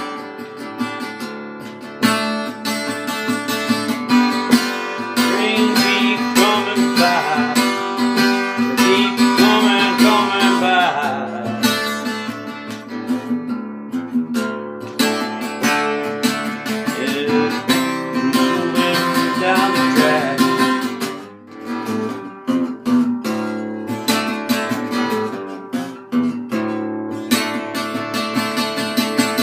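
Epiphone EL-00 parlor acoustic guitar flat-picked hard in an alternate tuning: an instrumental passage of strummed chords and picked notes, briefly quieter about two-thirds of the way through.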